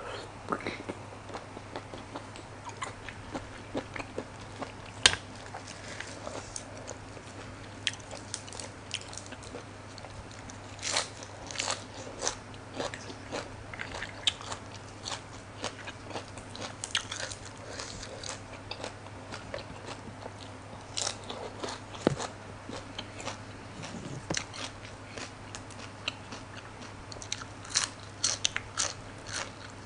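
Close-miked eating: chewing of blood cockles and crisp crunching of raw fresh vegetables, in scattered sharp crunches with denser runs about a third of the way in, a little past halfway and near the end, when a long green vegetable stem is bitten. A steady low hum runs underneath.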